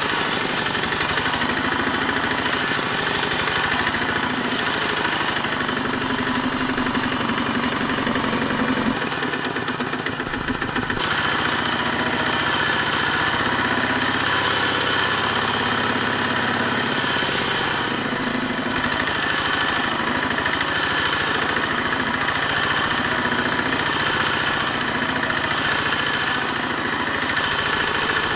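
Small farm tractor's engine running steadily with an even firing rhythm, easing slightly about a third of the way in before settling back.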